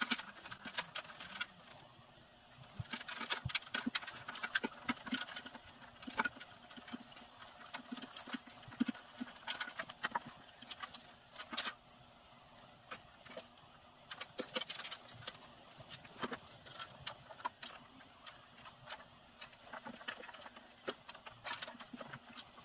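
Hand work in a classic Mini's stripped engine bay: irregular clicks, taps and rustling as wiring and parts are handled against the steel bodywork, with a few sharper knocks scattered through.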